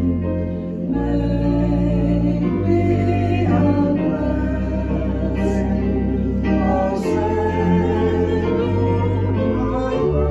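A woman singing a hymn, accompanied by organ, whose deep held chords change every second or two.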